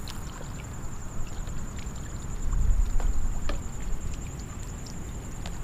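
Kayak paddling in calm water: paddle strokes and drips with scattered small ticks and splashes, over wind rumbling on the microphone that swells about halfway through. A thin steady high whine runs underneath.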